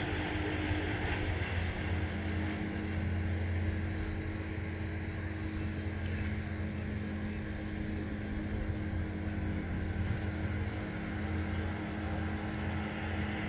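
Steady low mechanical drone with a constant hum that does not change.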